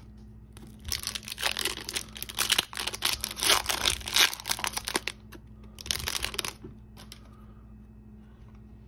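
Foil wrapper of a hockey card pack being torn open and crinkled by hand, a dense crackling from about a second in until about five seconds, with a shorter crinkle around six seconds.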